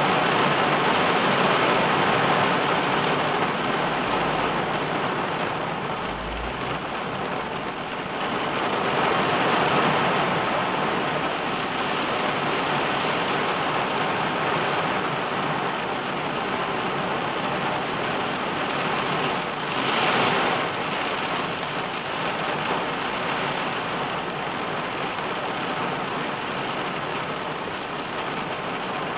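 Heavy rain falling on a car's roof and windscreen, heard from inside the car: a steady, dense hiss. It swells about ten seconds in and has a brief louder rush about twenty seconds in.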